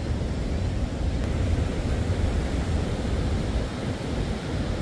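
Wind blowing across the microphone over ocean surf washing on the shore, a steady noise without breaks.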